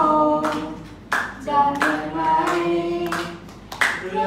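A boy singing a Thai song unaccompanied into a microphone, holding some notes between shorter phrases.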